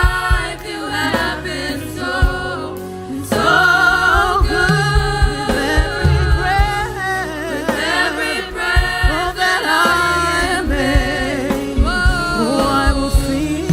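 Live church worship music: a band with drums and bass plays a slow gospel song while voices sing.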